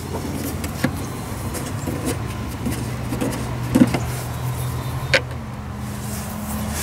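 A few sharp clicks and knocks from hands handling a truck's plastic front license plate bracket, the loudest near the middle, over a steady low engine hum from a vehicle.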